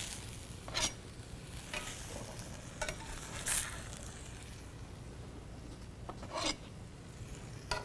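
Food sizzling faintly in a stainless skillet, with about half a dozen short scrapes and taps of a spatula against the pan as the pieces are turned.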